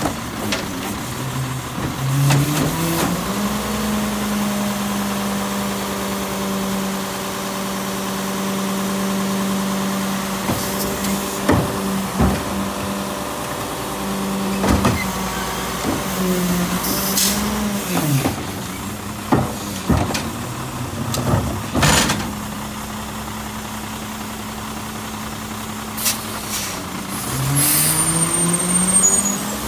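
Garbage truck engine speeding up in steps, then holding a steady raised speed, broken by a string of loud bangs and clanks. Near the end the engine speeds up again as the truck accelerates.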